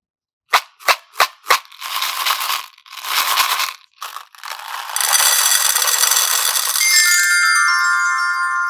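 A run of edited sound effects: four sharp clicks, then a few swishing noises and a loud hiss, ending in a descending run of bell-like chime notes that ring on.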